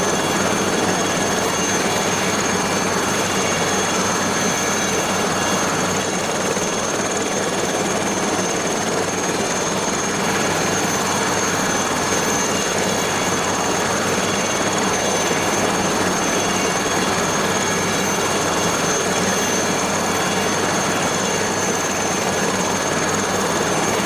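Aérospatiale SA315B Lama helicopter running steadily: the Turbomeca Artouste turboshaft's constant high whine over the continuous noise of the engine and rotor.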